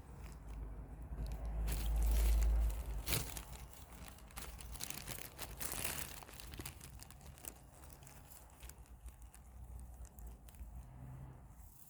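A cat tunnel's crinkly fabric rustling and crackling unevenly as a cat moves inside it. A heavier low bump comes about two seconds in.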